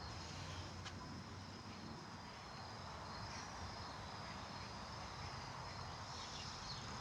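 Quiet outdoor ambience: a steady high insect chirring, like crickets, over a low background hum.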